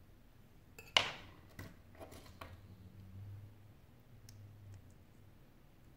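Small hand tools and phone parts being handled: one sharp click about a second in, then a few softer clicks and light scraping, as metal tweezers and a toothpick work on a smartphone's detached display.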